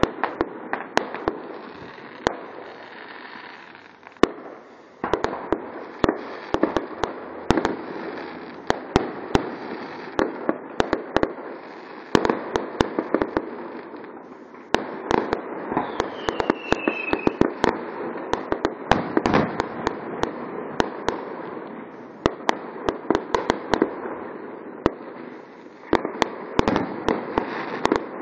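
Aerial fireworks bursting in a rapid, uneven series of bangs with crackling between them, and a brief falling whistle about sixteen seconds in.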